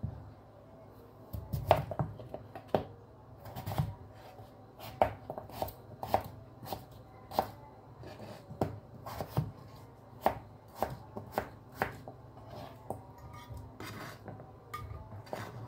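Chef's knife cutting peeled raw potatoes on a plastic cutting board: sharp, irregular knocks of the blade striking the board, about one or two a second.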